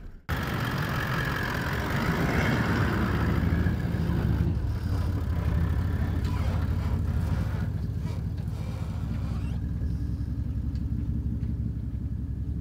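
Toyota LandCruiser 79 Series' V8 turbo-diesel running as it drives along a dirt track, with steady engine and tyre noise that is louder for the first four seconds or so, then eases.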